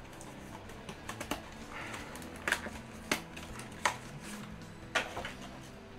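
Cardboard packaging being handled: Yu-Gi-Oh Generation Force Special Edition boxes sliding and knocking against each other as they are pulled from their display box, with light scrapes and a handful of sharper clicks and knocks spread through.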